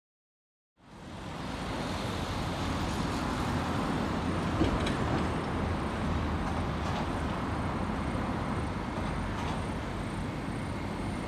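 Steady outdoor city traffic noise, fading in after about a second of silence, with one brief tick about halfway through.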